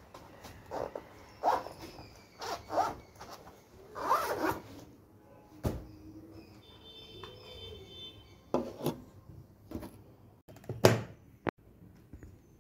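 Handling noise as a fabric sleeve and laptop gear are set up on a wooden table: short rustles and zip-like scrapes of cloth, then a few separate knocks and clicks, the loudest sharp click about eleven seconds in.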